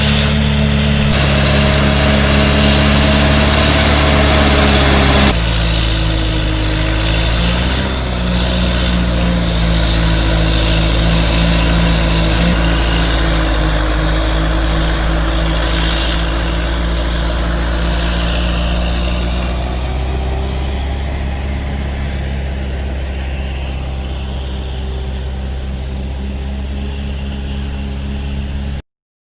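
Heavy earthmoving machine's diesel engine running steadily under load. The sound changes abruptly about a second in and again about five seconds in, and cuts out briefly near the end.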